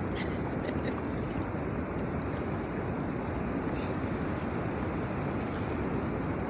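A steady rushing noise with no clear events, the open-air noise of a riverbank such as wind and moving water. A few faint ticks come about half a second in.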